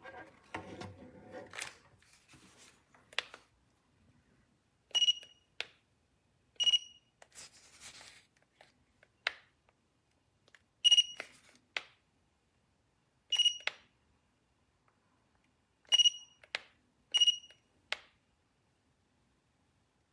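Electronic button beeps from an appliance control panel, six short single-pitched beeps at irregular gaps as buttons are pressed, with plastic clicks and handling noise between them.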